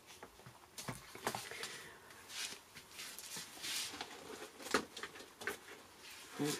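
Quiet paper handling: rustles and light taps as a glossy catalogue is lifted off a cutting mat and laid aside, with a few small clicks.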